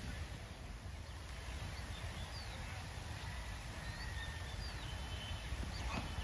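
Open-air ambience: a steady low rumble with a few faint, short bird chirps scattered through the second half.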